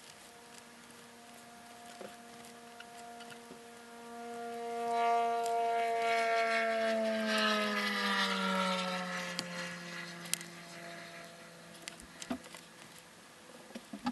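A single engine drone passing by, heard as a steady hum that swells, drops in pitch as it goes past, then fades away.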